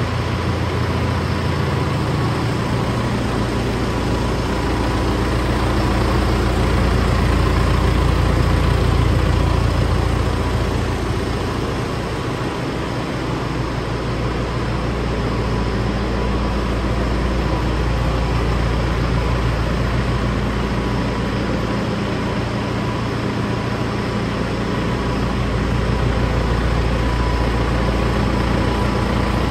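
John Deere 6430 tractor's diesel engine idling steadily, with a deep, even hum that swells slightly louder and softer now and then.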